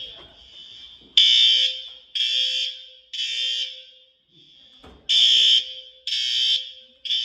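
Building fire alarm sounding the temporal-three evacuation pattern: three blasts about a second apart, a pause, then three more. This is the signal to evacuate.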